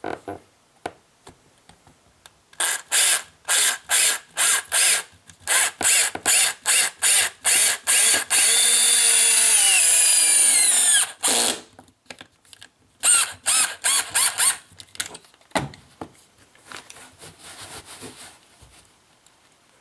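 Power drill driving a screw through carpet into the subfloor: a string of short trigger bursts, then a steady run of about three seconds with the pitch falling, then a few more short bursts.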